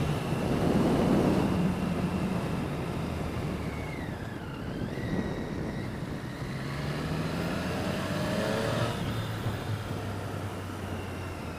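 Motorcycle engine pulling hard under acceleration, its note climbing in the second half, over a steady rush of wind and road noise.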